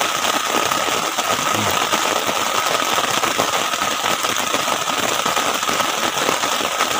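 Heavy rain falling steadily on a tent, heard from inside it as a dense, even patter, with a thin steady high tone running underneath.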